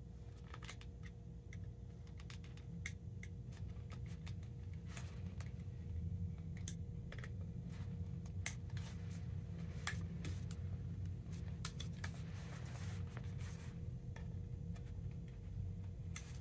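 Irregular small clicks and scratches of a pointed awl being worked through the holes of a plastic tennis racquet grommet strip, over a steady low hum.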